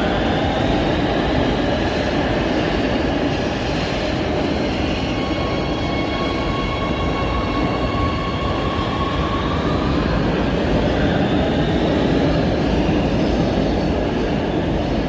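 Train running on rails: a steady, loud rumble with thin high-pitched tones that drift slowly up and down, loudest through the middle.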